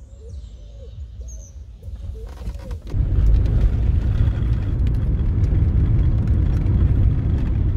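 Steady low rumble of a Volkswagen car driving, heard from inside the cabin, starting suddenly about three seconds in. Before it there is a quieter low hum, with a bird calling a few times outside.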